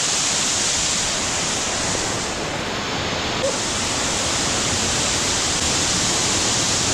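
Waterfall pouring: a steady, dense rush of falling water close by.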